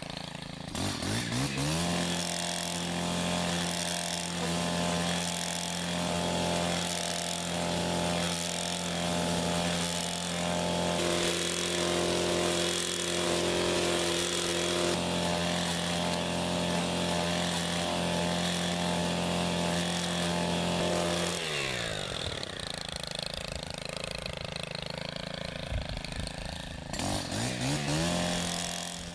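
STIHL petrol brushcutter engine revving up and running steadily at high speed while cutting grass. About 22 seconds in it drops back to a lower speed, then revs up again near the end and cuts off suddenly.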